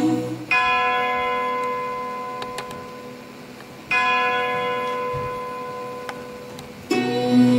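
A bell struck twice, about three and a half seconds apart, each stroke ringing and slowly fading away. Music starts up again near the end.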